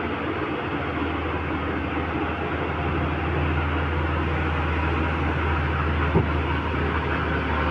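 Heavy Mitsubishi Fuso 6x4 cement tanker truck's diesel engine pulling slowly through a tight hairpin bend with a steady low drone, growing a little louder as the truck comes closer. A short sharp knock about six seconds in.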